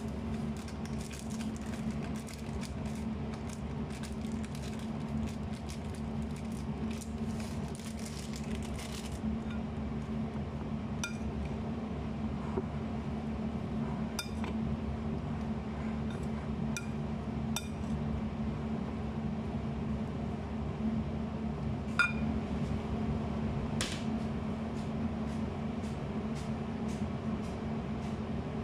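A plastic bag crinkles as its contents are shaken out over a glass salad bowl. Then come a few scattered sharp clinks against the glass bowl as the chopped salad is mixed, over a steady low hum.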